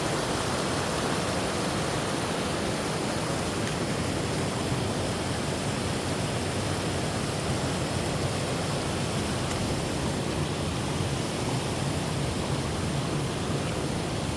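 Rushing water: a steady, unbroken hiss and rumble of falling or flowing water.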